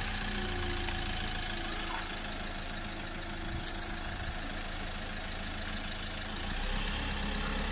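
Chausson motorhome's diesel engine running low and steady as it creeps forward at walking pace, with a few brief sharp clicks about halfway through.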